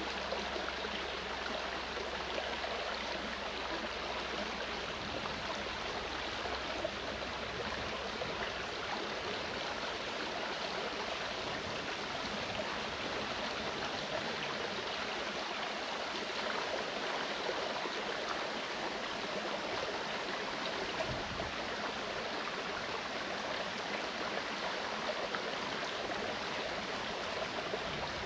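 Clear mountain stream flowing over rocks, a steady, even rush and babble of water with no letup.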